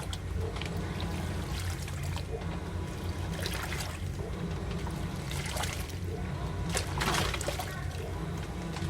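AQUA MCW-C70A coin-operated 7 kg washing machine mid-wash: water pouring and splashing in the drum in uneven surges, the loudest about seven seconds in, over a steady low hum.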